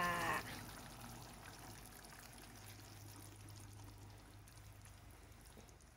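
Instant coconut milk poured in a thin stream from a carton with a small opening onto chicken pieces in a pan, a faint, steady pouring.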